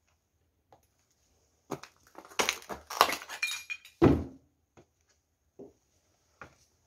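Broken glass and debris crunching and clinking in a burst of about two and a half seconds starting near two seconds in, ending in a heavy thud, followed by a few faint knocks.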